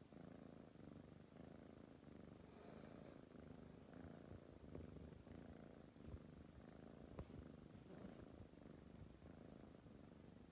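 Sleeping tabby kitten purring faintly, the purr swelling and easing in slow waves with its breathing. A couple of faint clicks come about six and seven seconds in.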